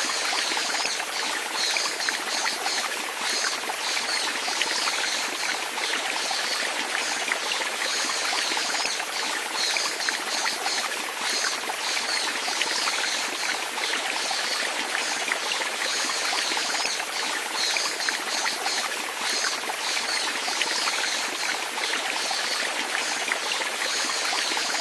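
Flowing water of a small stream, trickling steadily with many small splashing ticks.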